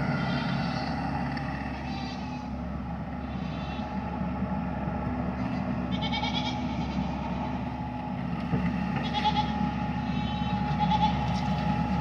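Goats bleating several times over the steady hum of an engine running.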